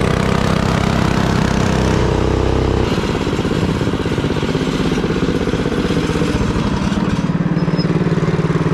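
Small single-cylinder minibike engine running, its note changing abruptly about three seconds in and then holding steady.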